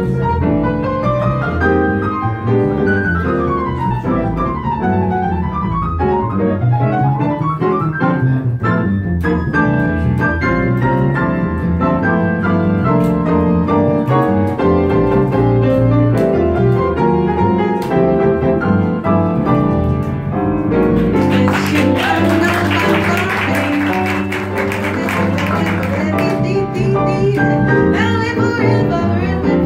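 Instrumental break in a live jazz song: piano playing fast runs over low held notes. For a few seconds about three-quarters through, a brighter, noisier wash joins the piano.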